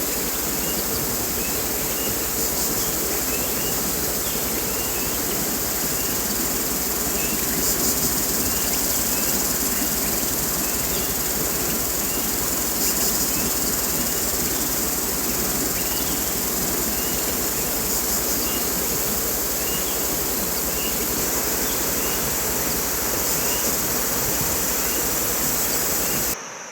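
Forest ambience: a steady high-pitched insect chorus over an even hiss of running water, with many small repeated chirps. It cuts off suddenly near the end.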